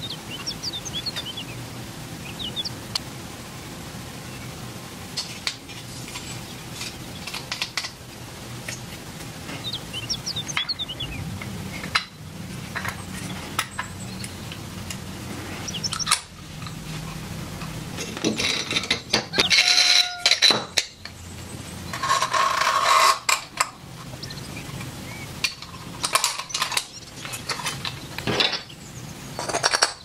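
Clicks, scrapes and clinks of copper tubing, a clear plastic tube and steel parts being handled and fitted together by hand. There is a louder stretch of rattling and clinking over a few seconds past the middle.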